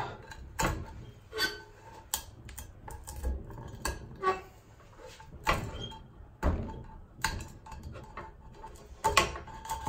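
A firm piece of plastic scraping and chipping at hardened burnt caramel stuck to a non-stick frying pan: irregular short scrapes and sharp clicks, roughly one a second. The sugar is stubborn here, not lifting off the pan's surface easily.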